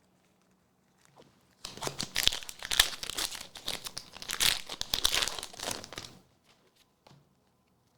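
Foil Pokémon booster pack wrapper crinkling and tearing as it is opened. A dense crackle starts about a second and a half in and lasts about four and a half seconds.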